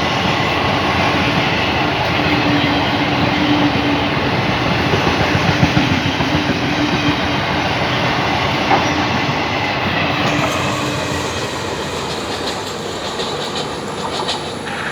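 Indian Railways express passenger train passing close by: a steady loud rush of coaches with wheels clacking over the rail joints, easing off after about ten seconds.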